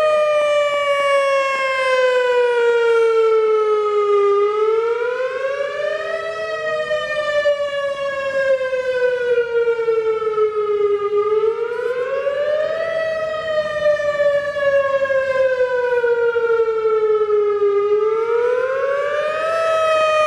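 Whelen WS-2000R rotating electronic tornado siren sounding a test. Its tone climbs quickly and then glides slowly down, over and over, about every six and a half seconds. It grows quieter through the middle and louder again near the end.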